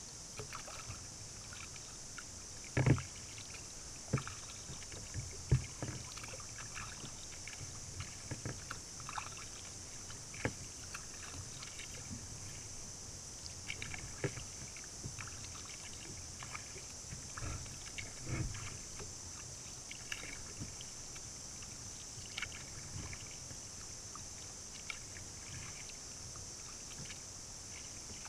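Kayak paddling on calm river water: irregular soft splashes and drips from the paddle blades, with an occasional knock, over a steady high hiss.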